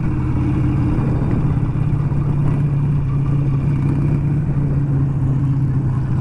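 Harley-Davidson V-twin engine running at a steady, even pace while riding along a dirt road, a low continuous drone with no change in revs.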